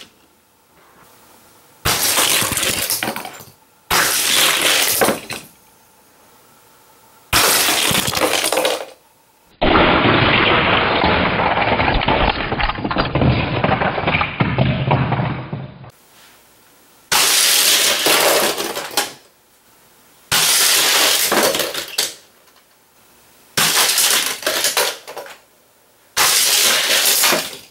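Hot Wheels die-cast cars clattering down a folding plastic Race Crate track in repeated launches: about seven sharp-starting bursts of rattling, a second or two each, with short pauses between. A longer, duller six-second stretch of rattling sits in the middle. Some cars catch on the gaps between the track's folding sections and crash off the track.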